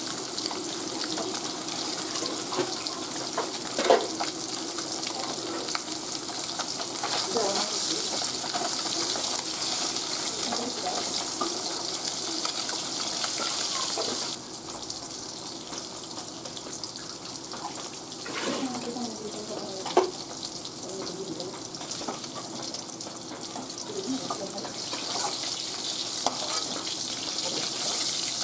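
Fish pieces shallow-frying in hot oil in a wok: a steady sizzle with a few sharp pops. The sizzle drops in level about halfway through.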